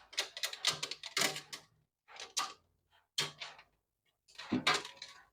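Intermittent handling noises: short knocks, clicks and rustles, about half a dozen separate bursts with gaps between them, as parts and packaging are taken out of a new microwave oven.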